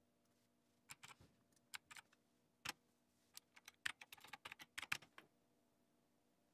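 Typing on a computer keyboard: a few scattered keystrokes at first, then a quicker run of keys from about three to five seconds in.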